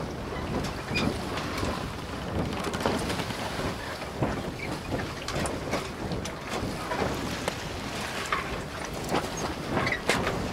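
Steady rushing noise inside the cabin of a passenger boat under way at sea, with frequent short knocks and rattles through it.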